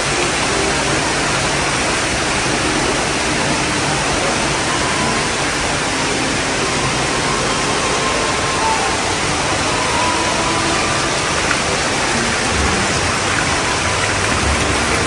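Small fountain jets spouting water into a pool, making a steady, even splashing.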